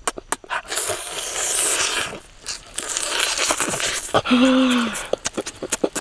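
Close, wet smacking and crunching of someone biting into and chewing cooked eel, with rapid lip-smacking clicks throughout and stretches of crunching as flesh and skin are torn off. A short low falling hum, like a satisfied "mm", sounds about four seconds in.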